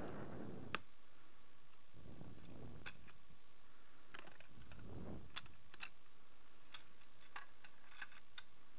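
Light clicks and taps of small plastic drone parts being handled and pried at, with one sharper click about a second in and a scattering of smaller ones after, mixed with short spells of rustling.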